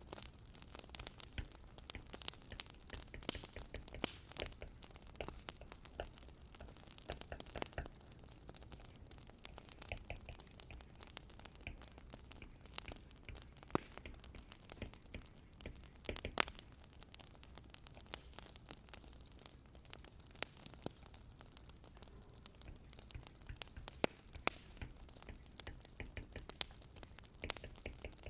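Wood fire crackling: a soft low rumble under frequent irregular pops and snaps, a few sharper than the rest.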